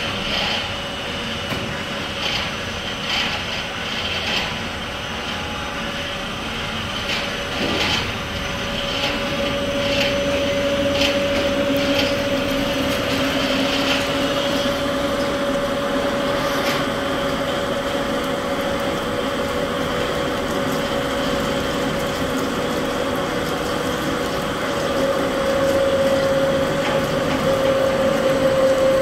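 Double-spindle hydraulic-feed drilling machine running, its two twist drills cutting metal with a steady whine. Sharp clicks come about once a second in the first several seconds, then the cutting settles into a steady drone that grows louder near the end.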